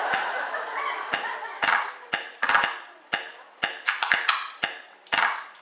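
A run of sharp taps or claps, about two a second and not quite even, with a murmur of voices in the first second or so.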